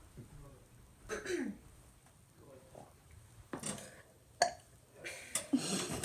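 A person burping: a short burp falling in pitch about a second in, then a longer, rougher one near the end, with two sharp clicks in between.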